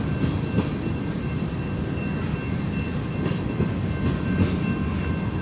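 A long train rolling past: a steady rumble of railcar wheels on the rails, with faint clicks and a few thin, steady high tones over it.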